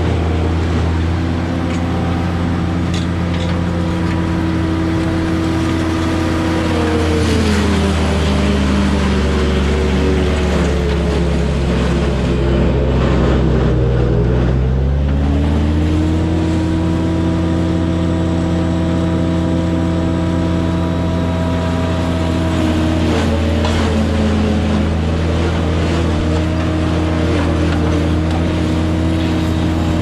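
A motor running steadily, its pitch sagging for several seconds about a quarter of the way in, then climbing back, with a shorter dip later on.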